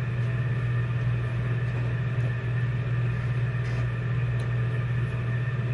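A steady, even low mechanical hum with faint steady tones above it, unchanging throughout.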